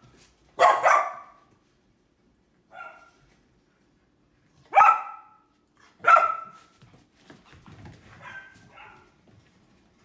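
Golden retriever puppies barking in short, high-pitched barks. There is a quick pair about a second in, then loud single barks at about five and six seconds, and softer ones near the end.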